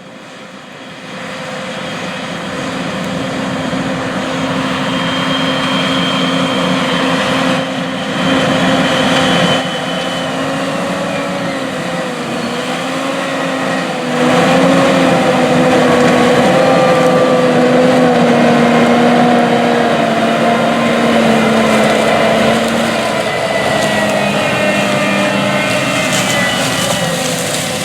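John Deere 8360RT track tractor's diesel engine running steadily under load as it pulls a turbo chopper across the field. The engine's pitch wavers slowly. It grows louder over the first few seconds and again about fourteen seconds in.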